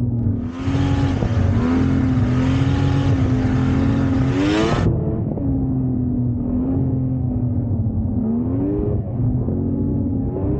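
Yamaha VMAX 600's three-cylinder two-stroke snowmobile engine running under way on the trail, mostly at a steady pitch. The pitch climbs as the throttle opens about four and a half seconds in, again near eight seconds and near the end. A rushing hiss rides over the engine for the first half and stops suddenly.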